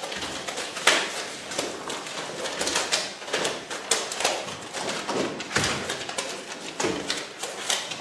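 Paper sticky notes being peeled off a wall and pressed back by several hands: a busy run of quick, irregular rips and rustles.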